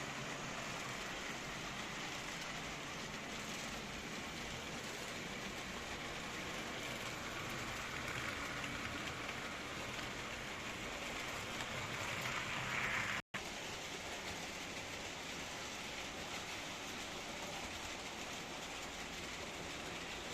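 H0-scale model trains running on a three-rail AC layout: a steady rolling noise of small wheels on the track, growing a little louder and brighter toward the middle as a train comes closer, and cut off for an instant about 13 seconds in.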